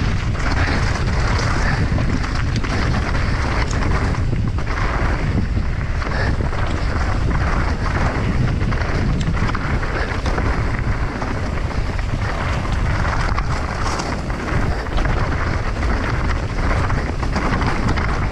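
Wind buffeting a GoPro's microphone while a mountain bike descends rocky singletrack at speed, with the steady rumble and rattle of tyres and bike over stones and gravel.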